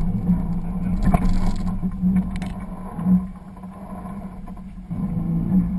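Off-road vehicle's engine running at a slow rock crawl, a steady low drone that swells and eases several times, with a few sharp knocks a little over a second in.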